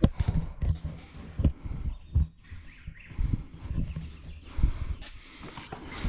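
Irregular dull low thuds with some rustling, the sound of someone walking while carrying the camera.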